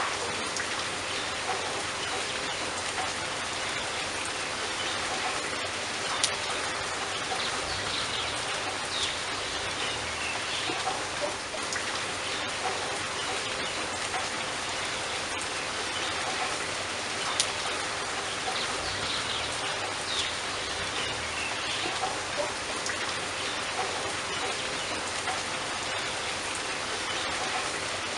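Steady rain falling, with individual drops pattering and a couple of sharper drip hits, about six and seventeen seconds in. Faint bird chirps come through now and then.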